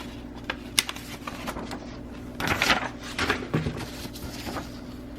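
A series of light clicks and handling noises: a few sharp ticks, then a busier run of clicking and scraping in the middle, over a steady low hum.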